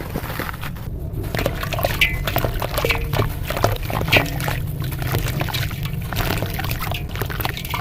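Dense gritty crunching and crackling of dry red dirt and coal crumbling, many small crackles overlapping throughout.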